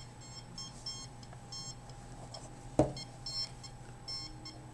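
Rapid, uneven high-pitched electronic beeping, a few beeps a second, over a steady low hum, with one sharp knock about three seconds in.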